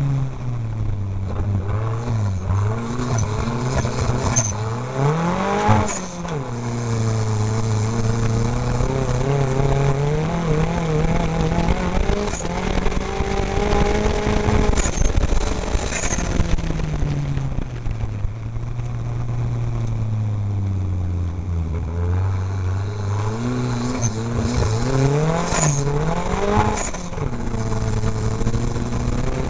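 Off-road race vehicle's engine heard from on board, its revs rising and falling through the course as it accelerates, lifts off and shifts. Twice the revs climb sharply and drop back, over a rough rushing noise with a few short knocks.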